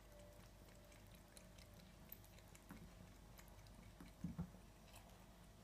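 Siamese cat lapping water from a wine glass: faint, irregular wet licking clicks. Two dull knocks follow each other quickly about four seconds in.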